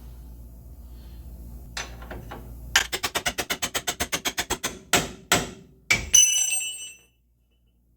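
Steel hammering on a pickup's front suspension: first a rapid, even run of about ten blows a second, then three separate strikes, the last one ringing out like struck metal. The hammering knocks a stuck suspension joint loose.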